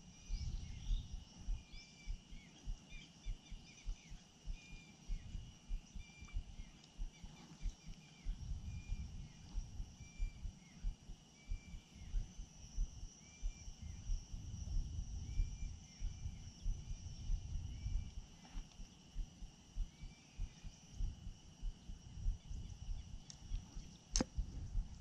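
Outdoor pond-side ambience: an irregular low rumble of wind buffeting the microphone, with faint high chirping and a steady high buzz from birds and insects. A single sharp click sounds near the end.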